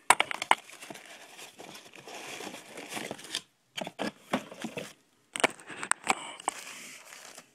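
Cardboard camera packaging being handled, with several sharp knocks and clicks near the start, then the crinkling of the camera's white paper wrapper as it is lifted out and unfolded in the second half.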